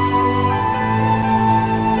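Background music: a slow, held melody line over sustained low notes, moving to new notes about half a second in.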